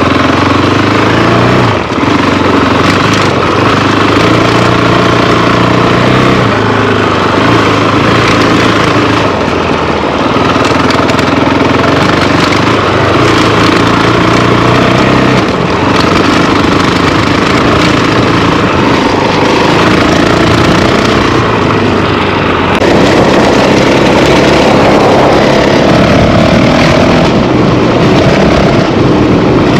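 Honda CRF450L's single-cylinder four-stroke engine running as the dirt bike is ridden slowly along a sandy track. The engine note shifts up and down with throttle and gear changes, and gets a little louder about two-thirds of the way through.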